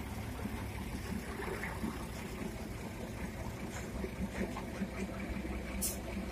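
Heavy diesel log truck running as it pulls away across a dirt yard, a steady low rumble, with a short hiss near the end.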